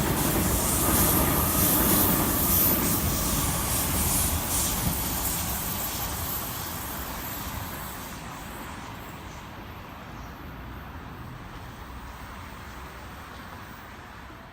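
Sydney Trains Waratah A-set electric multiple unit passing beneath: a rumble of wheels and motors with a faint steady whine in the first few seconds. It fades away steadily through the second half as the train moves off.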